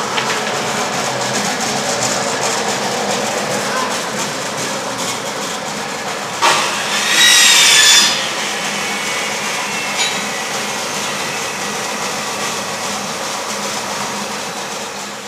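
Coffee bean sieving and grading machine running, its electric motor shaking the mesh screens with a steady rattling noise. About six and a half seconds in comes a sharp knock, then a louder grating screech lasting about a second and a half, and another small knock about ten seconds in.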